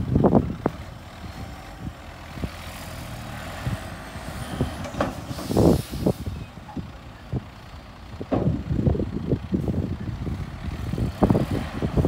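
Tipper dump truck with its bed raised, engine running as it unloads dirt, with heavy rumbles of the load coming and going and a short air hiss partway through.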